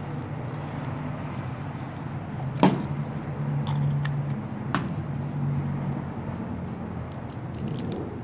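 Low vehicle hum that swells and fades, with a few sharp clicks and taps from handling the knife and the cut piece of epoxy putty stick; the loudest click comes about two and a half seconds in.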